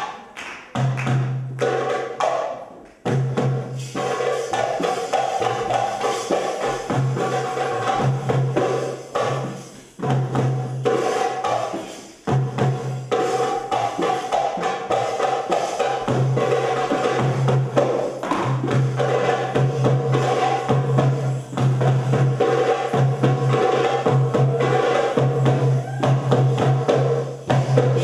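Live Middle Eastern music: hand drums, including a large frame drum and a goblet drum, playing a steady, driving rhythm, with sustained pitched melody notes above the drumming.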